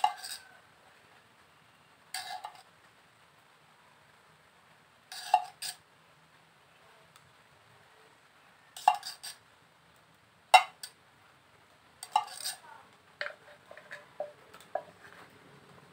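A tin can of varnish being handled, giving separate metallic clinks and knocks every second or few, then a run of smaller clicks near the end. This is the varnishing stage of rewinding a motorcycle primary coil.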